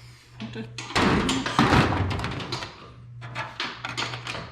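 Knocks and clatter of hands-on work on a race car, with a louder noisy rattle lasting about a second and a half, starting about a second in, over a steady low hum.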